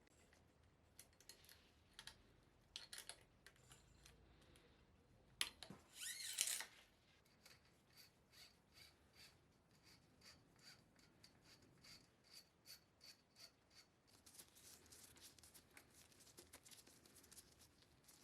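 Faint mechanical clicks and rubbing from handling small parts. About six seconds in there is a brief, louder scraping burst, followed by a run of even clicks about two or three a second, then quicker, fainter clicking.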